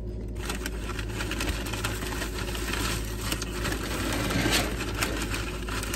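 Car engine idling steadily, heard from inside the cabin as a low even hum. About half a second in, a rustling hiss with small clicks joins it.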